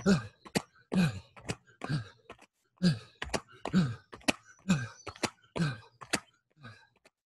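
A man grunting and breathing hard while doing jumping jacks: a short groan that falls in pitch about once a second, each followed by a sharp tap, growing fainter near the end.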